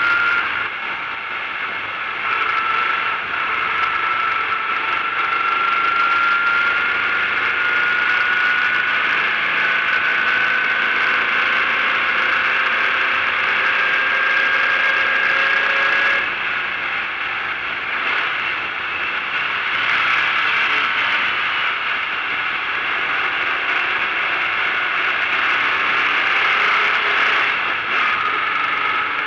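Racing VW Fusca (Beetle) air-cooled flat-four engine running hard, heard from inside the stripped cabin. Its pitch climbs slowly for about fifteen seconds and then drops suddenly. It picks up again, drops once more near the end, and starts climbing again.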